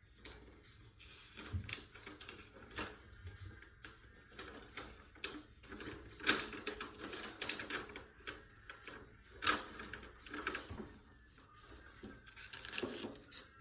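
Irregular light clicks and taps from small objects being handled, with louder knocks about six and about nine and a half seconds in.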